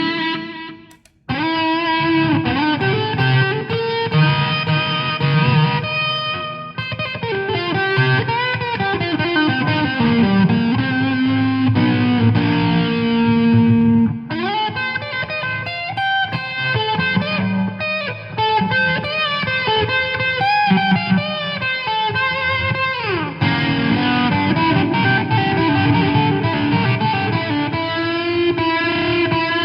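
Electric guitar played with effects and some distortion: melodic lines with many bent notes over sustained notes. It comes in after a brief break about a second in.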